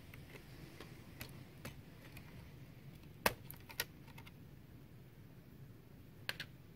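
Faint, scattered clicks and taps of metal tweezers working on a laptop motherboard around the CMOS coin-cell battery, the loudest a little past three seconds in and a quick pair near the end.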